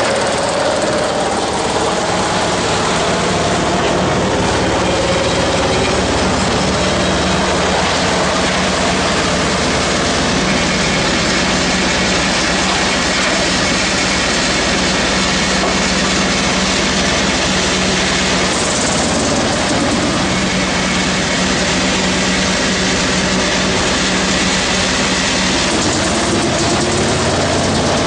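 Drum wood chipper driven by an electric motor, running loud and steady while chipping logs, with a steady low hum under the noise of the wood being cut.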